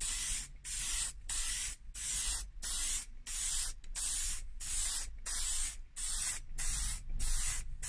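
Aerosol spray can of clear lacquer hissing in quick short bursts, about one and a half a second, each cut off briefly as the nozzle is released between strokes.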